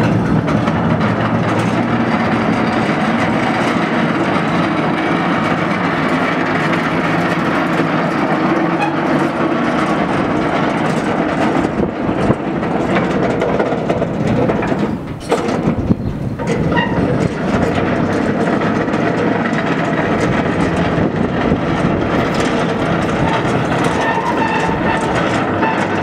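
Tram-depot works traverser, a low steel deck on flanged steel wheels, travelling along its rails: a steady rumble and clatter of steel wheels on track and its drive.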